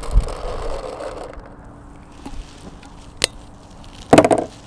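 Paintballs pouring from a pod into the paintball gun's loader, a rattling rush that stops about a second in. A sharp click follows, then a louder short clatter near the end.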